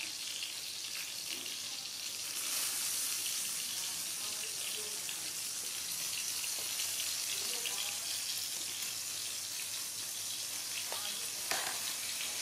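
Climbing perch frying in hot oil: a steady sizzle that grows louder about two seconds in, with one sharp knock near the end.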